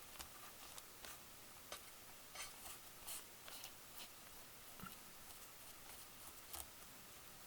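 Faint, irregular light scratching and ticking of a swab with alcohol being scrubbed over a circuit board to clean it.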